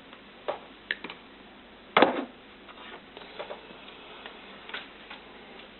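Scattered clicks and small knocks of a network cable and side cutters being handled on a workbench, with one louder knock about two seconds in.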